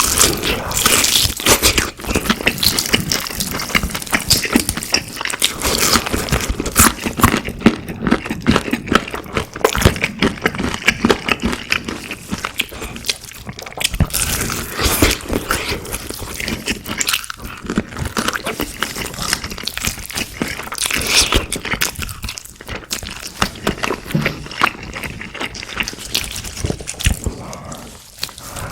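Close-miked biting, crunching and chewing of crispy fried food, with dense, irregular crackles in quick succession.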